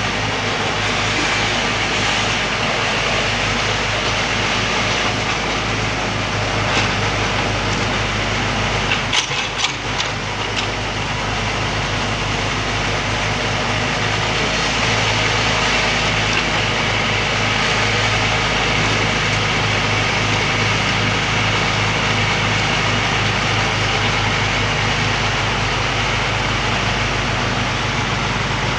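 Backhoe's diesel engine running steadily, with a few brief sharp knocks about seven to ten seconds in.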